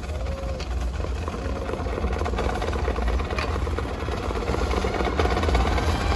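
Drum and bugle corps ensemble heard from the stands: a low, rumbling sustained chord that swells steadily louder, with brass tones gliding upward near the end.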